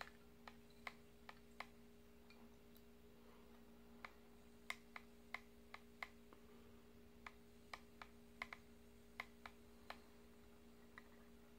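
Faint, irregular clicking, about twenty small clicks, from dry-firing freshly wrapped Kanthal vape coils and pinching them with ceramic tweezers, over a faint steady hum.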